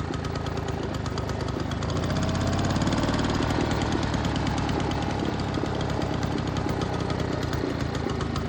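1947 Frazer rototiller's small gasoline engine running with a rapid, even firing beat. It picks up speed and gets a little louder about two seconds in, then settles again.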